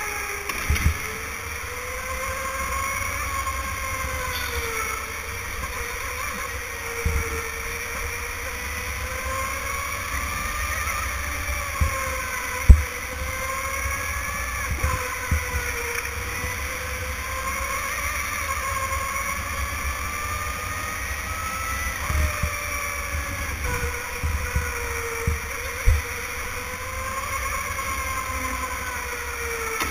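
Electric go-kart motor whining, its pitch rising and falling over a few seconds at a time as the kart speeds up and slows through the corners. A low rumble runs underneath, with a few sharp knocks, the loudest a little before halfway.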